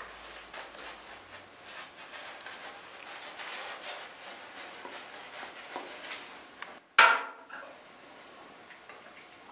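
Shaving brush scrubbing lather onto a stubbled face: a dense, crackling scratch of bristles on skin that stops about seven seconds in. Then one sharp knock with a brief ring.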